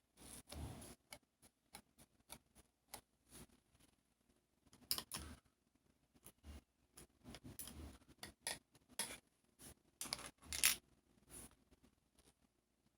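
Irregular small clicks, taps and brief rustles of small objects being handled close by, with a short cluster of louder clicks about ten and a half seconds in.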